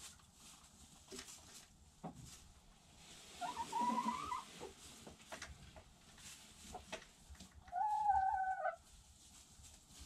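Backyard hens calling: two drawn-out calls about a second long each, one about three and a half seconds in and one about eight seconds in, with faint taps and clicks between.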